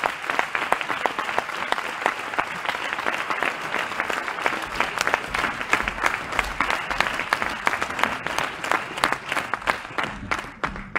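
Cinema audience applauding, a dense clapping that thins out and dies away near the end.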